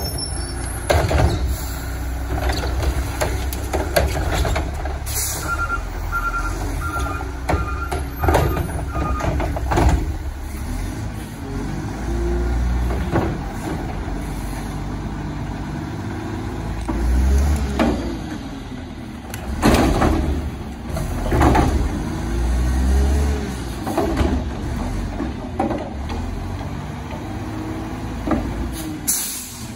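Mack LE front-loader garbage truck's diesel engine revving to drive the hydraulics while its Curotto Can arm swings up over the cab, with hydraulic whine rising and falling, repeated metal clanks and bangs, and a short run of beeps about six seconds in. A brief hiss of air comes about five seconds in and again near the end.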